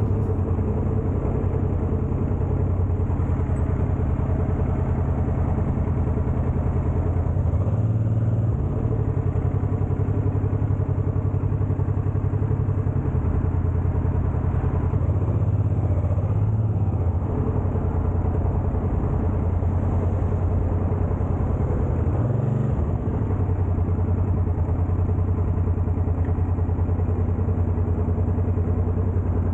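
Honda Transalp motorcycle engine running under way, a steady note with short changes in pitch about eight, sixteen and twenty-two seconds in as the throttle or gear changes.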